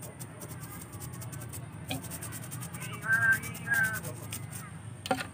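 A toothbrush scrubbing the rough bark of a grapevine trunk, short scratchy strokes with a couple of knocks against the wood. About three seconds in, two short high calls, one after the other, stand out as the loudest sound.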